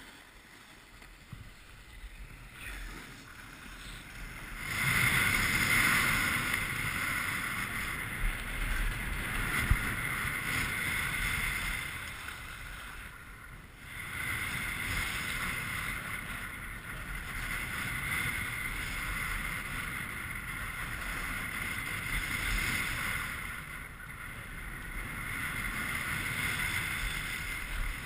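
Skis sliding and scraping over packed snow on a fast downhill run, with wind rushing over the microphone. It starts quiet, grows loud about five seconds in as the descent picks up speed, and eases off briefly about halfway through.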